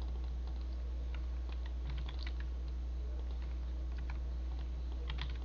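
Computer keyboard typing: scattered, faint keystrokes a few at a time, over a steady low hum.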